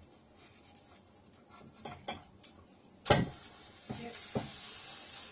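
Wooden spatula knocking and scraping in a frying pan as sardine patties are turned in hot oil, with one loud clank about three seconds in and two lighter knocks after it. The oil sizzles more loudly from the clank onward.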